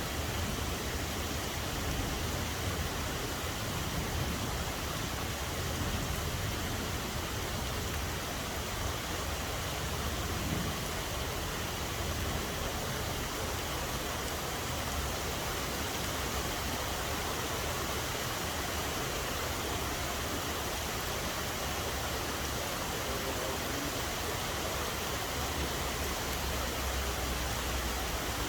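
Steady rainfall: an even, unbroken hiss of rain, with a low rumble underneath.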